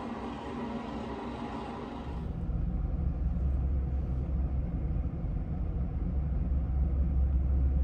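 A steady hum, then about two seconds in a switch to a louder, steady low rumble inside a car cabin.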